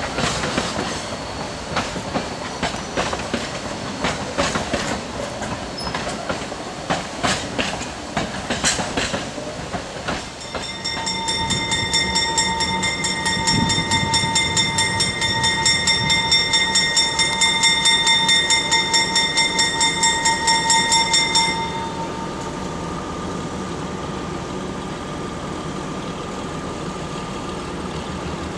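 Train wheels clicking over rail joints as railroad cars roll past. About ten seconds in, a bell starts ringing fast, about three strokes a second, and stops abruptly about eleven seconds later. A steady rumble follows.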